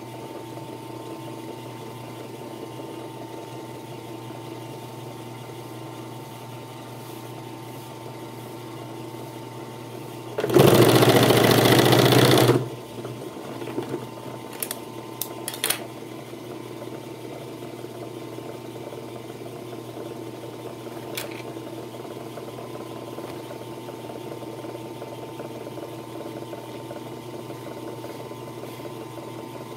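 Puritan three-needle industrial sewing machine: its motor hums steadily throughout, and about ten seconds in the machine runs and stitches for about two seconds before stopping. A few light clicks follow.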